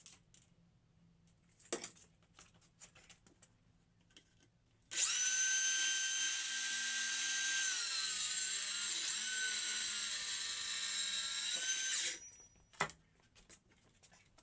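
Metabo plunge-cut circular saw running on its guide rail through a wooden panel. A few light handling knocks come first, then about five seconds in the saw starts with a high motor whine whose pitch dips slightly as the blade takes the load. It runs for about seven seconds and stops abruptly, followed by one knock.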